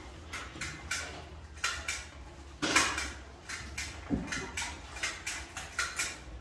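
A hand tool clicking sharply over and over at the bench, about three metallic clicks a second, irregular, with one louder stroke about three seconds in.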